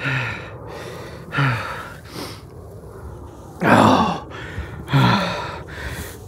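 A man's heavy, excited breathing: about five voiced gasps and sighs, each falling in pitch, the loudest a little past halfway through.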